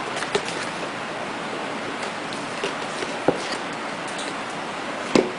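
A cardboard retail box being handled and turned over in the hands, giving a few light knocks and taps, a sharper one about three seconds in and the loudest near the end, over a steady hiss.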